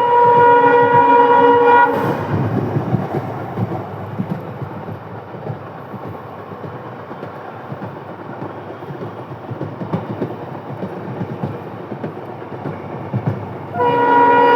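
Indian Railways WDP-4D diesel locomotive's air horn sounding a steady blast that cuts off about two seconds in. The train's running rumble and wheel clatter on the rails follow, and the horn sounds again near the end.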